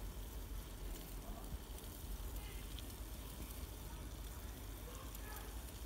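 Water at a full rolling boil in a steel camping mug over a burning hexamine fuel block, bubbling steadily with a low rumble underneath.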